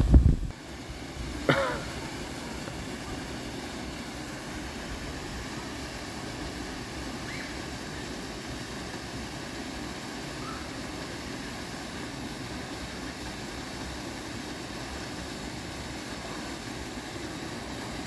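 Steady rush of a small waterfall pouring into a rock pool. Right at the start there is a short low thump, and about a second and a half in a brief cough-like vocal sound.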